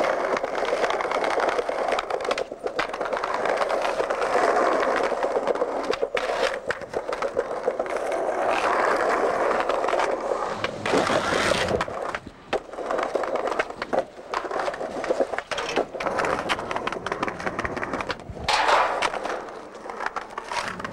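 Skateboard wheels rolling on concrete, with the rumble swelling and fading as the board passes close, and a few sharp clacks of the board hitting the ground along the way.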